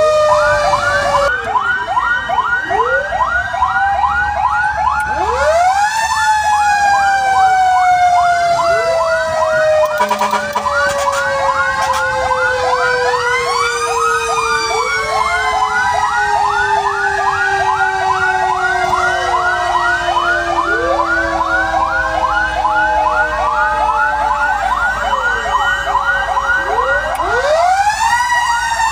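Several fire truck sirens sounding together, heard from inside a fire truck cab. A fast yelp repeats about three times a second over slower wails that rise and fall, and one long tone slowly falls in pitch.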